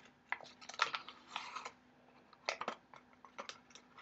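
A small paper powder packet being handled and emptied into a small glass: crinkling in short irregular bursts with small clicks, in three or four clusters.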